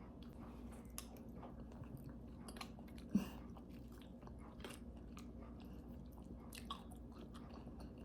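A person chewing a mouthful of oatmeal topped with roasted pumpkin seeds, with faint crunches and small mouth clicks. One louder, short sound comes about three seconds in.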